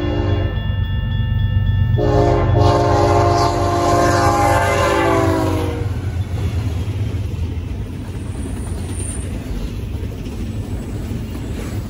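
Horn of a BNSF GE ES44DC freight locomotive: the end of one blast, then a second long blast that drops in pitch as the locomotive passes, over the heavy rumble of the lead diesels. After the horn stops, the rolling rumble of double-stack container well cars going by.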